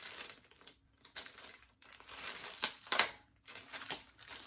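Packaging crinkling and rustling as a ring-light kit part is handled and unwrapped, with a few sharp clicks, the loudest about three seconds in.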